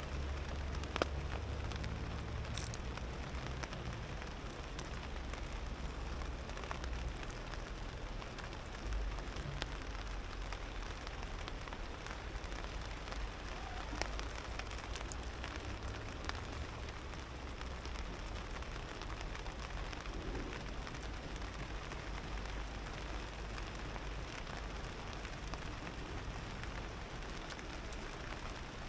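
Steady rain falling on a tarp overhead and the wet ground, with scattered sharp drop ticks and a low rumble underneath.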